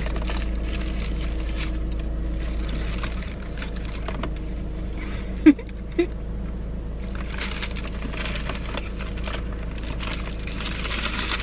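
Faint crinkling of a cookie's wrapper and small clicks over a steady low rumble, with a short sharp sound about five and a half seconds in.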